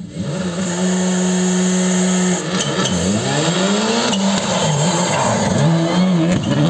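Škoda Fabia rally car's turbocharged four-cylinder engine approaching at speed. The revs hold steady, drop, then climb in a long rising sweep, and dip and rise again as the car brakes into a corner and powers out. A few sharp pops come as the revs drop in the middle.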